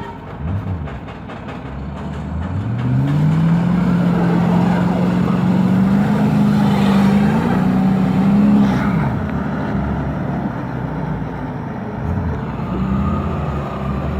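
A heavy vehicle's engine revs up and holds at high revs, rising once more before it drops back down about two-thirds of the way through.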